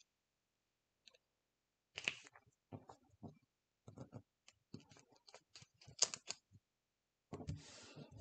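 Faint paper-handling sounds as hands press and smooth patterned scrapbook paper pieces down onto a background sheet on a cutting mat. After about two seconds there are scattered light clicks and rustles, one sharper click about six seconds in, and a longer rustle near the end.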